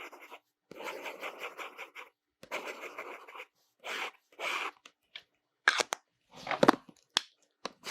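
Lamy Safari fountain pen with an extra-fine gold nib making strokes on paper. Three longer scratchy strokes come first, then a run of quick, short strokes in the second half.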